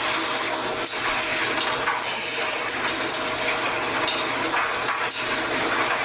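A steady, loud rushing hiss, with a few faint clicks in it.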